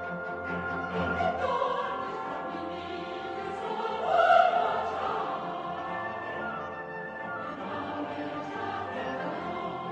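Classical music: an orchestra with choral singing, with a brief swell about four seconds in.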